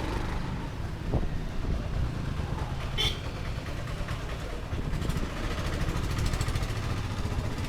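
Street ambience dominated by motor traffic engines, with voices in the background and a sharp click about three seconds in.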